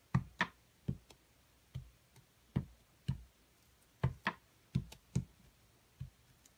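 Clear acrylic stamp block tapped again and again on an ink pad to ink the stamp: about a dozen short, dull taps at uneven spacing.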